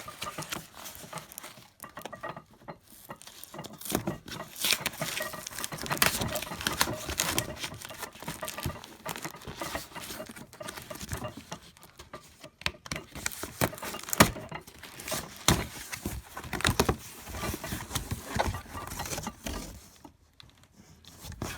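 Handling and unpacking a tool set: irregular rustling, clicks and knocks with light metal clinks of the tools and case.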